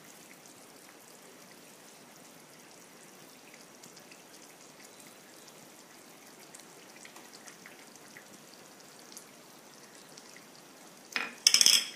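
Thick gravy simmering faintly in a pan on a gas flame, with scattered soft bubbling pops. About a second before the end comes a short, loud clatter.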